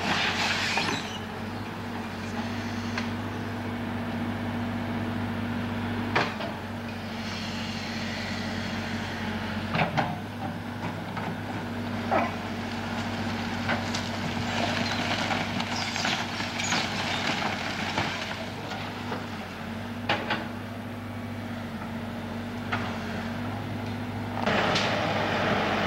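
A heavy machine's engine running steadily through a demolition, with sharp cracks, bangs and crunching as the burnt cabin's wood and debris break apart.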